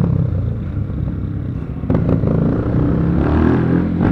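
Honda XRE motorcycle engine running loud, with a sharp exhaust pop about two seconds in and a rev rising in pitch near the end.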